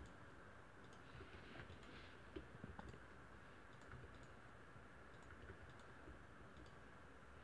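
Near silence with faint, scattered clicks of a computer keyboard and mouse.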